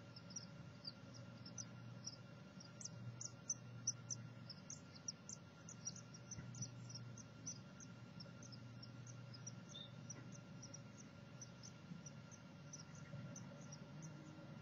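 Two-day-old great tit nestlings begging: thin, high-pitched peeps, several a second, growing sparser after about seven seconds, over a steady low hum.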